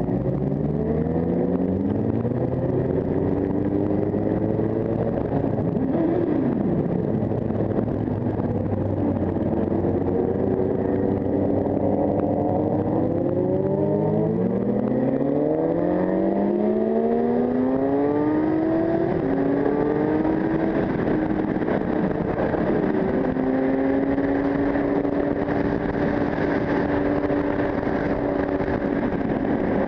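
Sport motorcycle engine accelerating hard through the gears, its pitch rising and dropping back at each of several shifts, then settling to a steady cruise about three-quarters of the way through.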